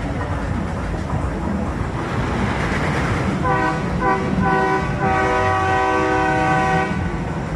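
A horn sounds a few short toots about halfway in, then one long steady blast of about two seconds, over a steady background din.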